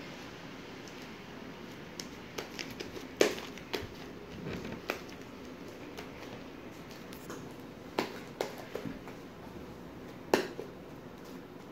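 Sticky, stringy homemade glue-and-shaving-cream slime being squeezed and pulled apart by hand, giving scattered sharp clicks and pops. The loudest pop comes about three seconds in, with another clear one about ten seconds in.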